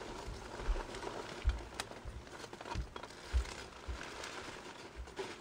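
Hands rummaging in a cardboard shipping box: rustling and crinkling of the packing inside, with a few dull bumps against the cardboard and one sharp click.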